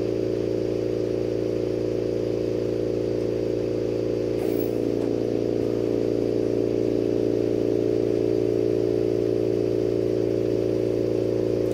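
Steady motor hum of lampworking studio equipment, with a light hiss over it. A brief rustling noise comes about four and a half seconds in.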